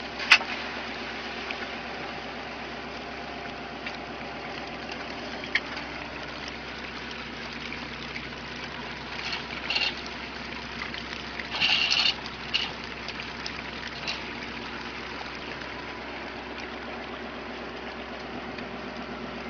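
A fishing boat's engine running steadily under water gushing and splashing, with a sharp knock just after the start and short bouts of clattering about ten and twelve seconds in.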